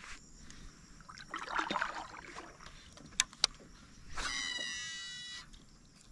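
A fishing reel's spool whining for about a second as a lure is cast, the whine a cluster of high tones with some falling in pitch as it slows. Two sharp clicks come just before it, and a short water rustle comes about a second in.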